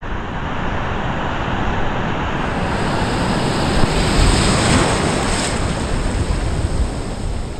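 Ocean surf breaking and churning whitewater right around a surfboard-mounted camera at water level, with wind on the microphone. The rush swells to its loudest about four seconds in as a wave breaks.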